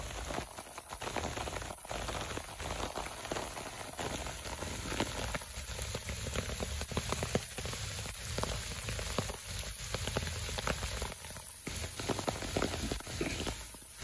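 Steady heavy rain falling on tree leaves and waterlogged bare ground, a dense continuous hiss made of countless small drop ticks.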